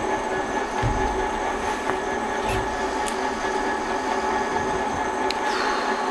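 Electric winch motor running steadily under load, a constant mechanical whine over a hum, as it hauls material up.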